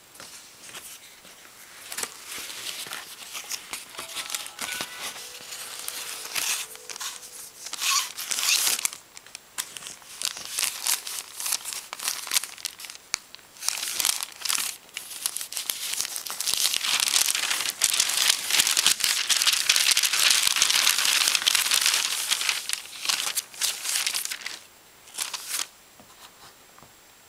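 A cardboard mailer box being opened by hand, with paper packing crumpled and rustled in irregular crackling bursts. A long, dense spell of crinkling comes about two-thirds of the way through and dies away near the end.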